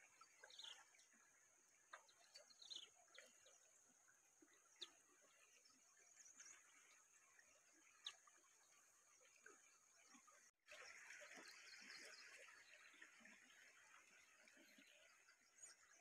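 Near silence: faint outdoor ambience with a few brief, faint bird chirps and the odd soft click.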